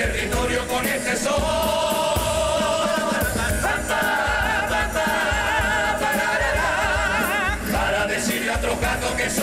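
A Cádiz carnival comparsa's male chorus singing together in harmony, accompanied by Spanish guitars, with a steady beat under it.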